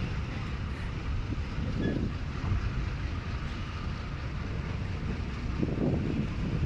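Train running along the line with a steady rumble and hiss, while gusts of wind buffet the microphone twice.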